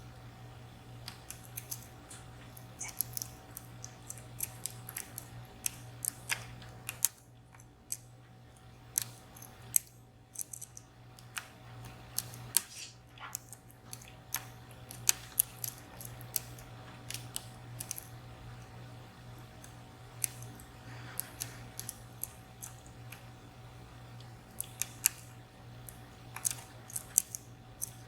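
Metal dimple pick tapping and scraping against the pins inside a VSR 14-pin, three-row dimple lock held under tension: irregular small clicks coming in quick clusters and scattered singles, over a steady low hum.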